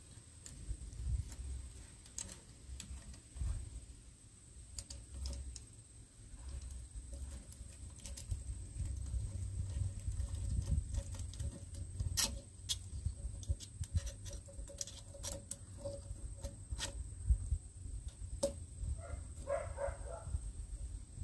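Scattered metallic clicks and light scraping from a hand-cranked, bar-mounted chainsaw chain sharpener as it is worked and adjusted on a pole saw's chain, over a low rumble.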